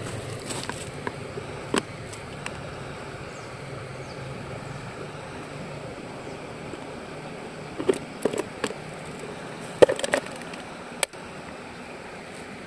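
Hands handling a small plastic fish container and its perforated snap-on lid: scattered light clicks and knocks, a cluster about eight seconds in and another about ten seconds in, then a single sharp click, over a steady background hiss.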